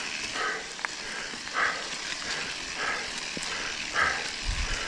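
A mountain biker breathing hard, about one breath every second or so, over the steady rustle of knobby tyres rolling on a leaf-covered dirt trail, with a few light clicks and rattles from the bike and some low thumps near the end.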